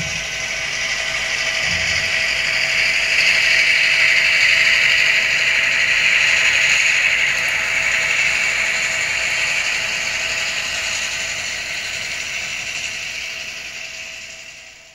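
HO scale model train, a diesel locomotive pulling hopper cars, running past on the track: a steady mechanical whir of gears and wheels rolling on rail with a faint steady whine under it. It swells over the first few seconds and fades away near the end as the train passes.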